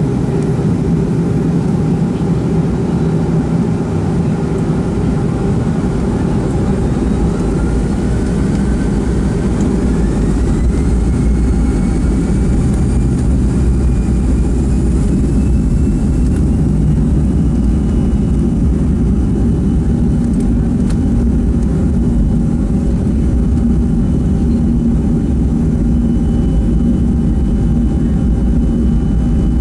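Boeing 737-500's CFM56 turbofan engines heard from inside the cabin: a steady, loud low rumble with a whine that climbs in pitch for about ten seconds from roughly a quarter of the way in, then holds. The engines are spooling up toward takeoff thrust.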